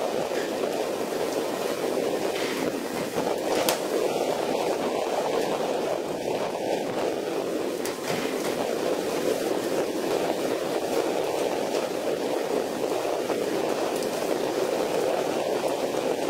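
Steady rushing noise of wind, waves and spray on the deck of a pole-and-line fishing boat in a rough sea, with a couple of faint sharp knocks.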